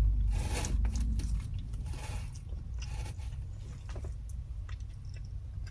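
Close-up eating sounds: a person chewing takeout food, with a few crunchy bites at irregular intervals over a low steady hum.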